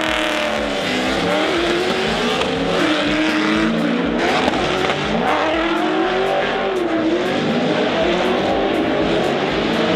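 VZ Commodore drift car's engine revving up and down repeatedly under throttle while drifting.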